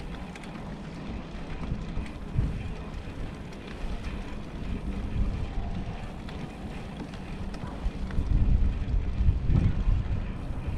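Wind rumbling against the microphone while riding, with heavier gusts near the end.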